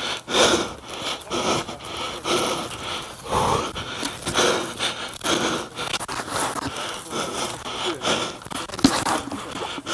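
A person breathing hard, with rustling and scraping of clothing and gear at irregular intervals.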